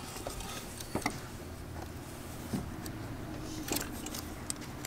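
A few light clicks and taps of small metal parts as a new set of ignition points and its wire terminal are handled at the distributor, over a faint steady low hum.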